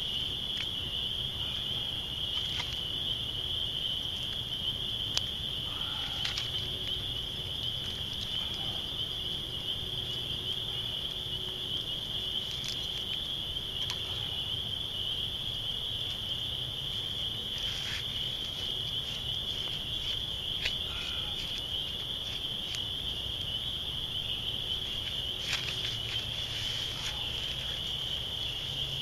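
A steady, high-pitched chorus of night insects trilling without a break. Scattered sharp crackles and snaps come from a small fire of sticks and pine straw as it burns and is tended.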